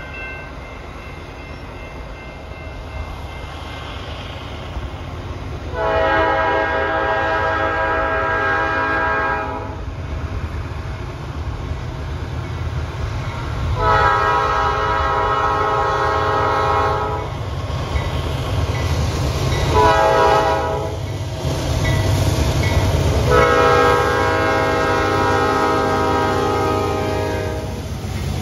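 Norfolk Southern diesel freight locomotive sounding its Nathan P5 air horn in the grade-crossing pattern: two long blasts, a short one, then a long one. Under it runs the rumble of the approaching engines, which grows louder as the locomotives pass near the end.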